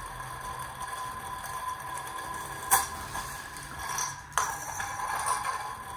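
Plastic trompo (spinning top) spinning on its tip on a tile floor, a steady hum, with two sharp clicks, about three seconds in and again a second and a half later, as the string loop drops over the spinning top and the cord wraps round it.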